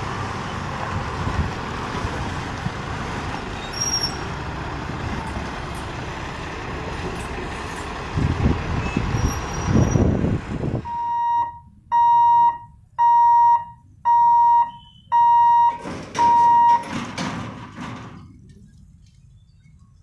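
Heavy trucks running over a level crossing, engine and road noise loudest about eight to ten seconds in. Then the sound changes abruptly to six evenly spaced electronic warning beeps, about one a second, followed by a short burst of noise before it fades.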